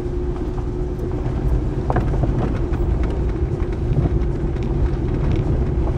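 Ford Explorer driving slowly on a dirt woods road, heard from inside the cabin: a steady low rumble of engine and tyres on the rough track with a faint steady hum. A brief knock or rattle comes about two seconds in.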